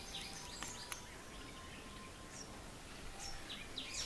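Garden birds calling faintly: a few short high chirps, then a quick run of short descending notes near the end. A thin steady whistle-like tone runs through the first two seconds.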